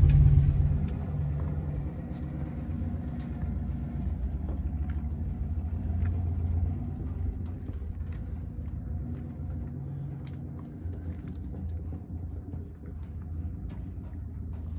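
Pickup truck engine running at low speed, a steady low rumble with scattered light rattles as the truck crawls along a rocky dirt road.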